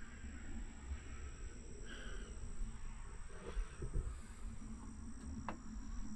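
Steady high-pitched insect trilling, most likely crickets in the fen grass, over a low rumble of wind on the microphone, with a faint click near the end.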